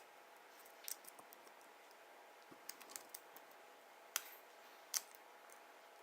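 Scattered light clicks and taps of a metal prying tool against the iPod Touch 4's casing and glass as the screen is pried loose, the loudest two near the end, over a faint steady hiss.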